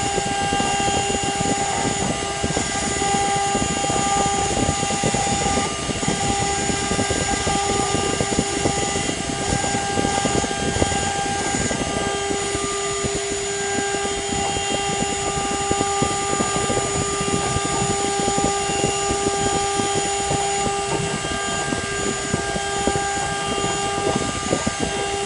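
CNC spindle running steadily with a constant whine while its engraving bit cuts traces into a copper-clad circuit board, over a continuous rough, crackling cutting noise.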